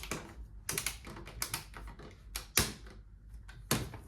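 Irregular sharp plastic clicks and knocks, about eight in four seconds with the loudest about two and a half seconds in, from the Axkid ONE car seat's anti-rebound bar being worked by hand to test its newly fitted grey wheel.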